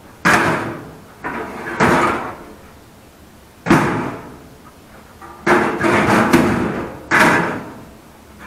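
Metal office workstation frames and panels clanking and banging as they are pulled apart and set down, about eight sharp knocks spread irregularly, each ringing briefly.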